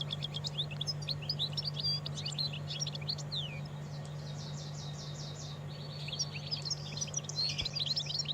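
European goldfinch singing: a fast, liquid twittering song with a buzzy rattling phrase midway, over a steady low hum.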